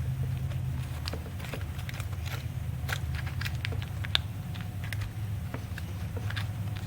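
Scattered small clicks and taps of hands working crimped wire terminals into a plastic connector housing, one sharper click about four seconds in, over a steady low hum.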